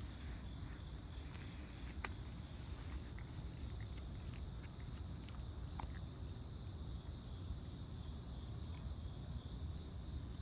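Crickets trilling steadily as a high, continuous drone, over a low background rumble with a few faint clicks.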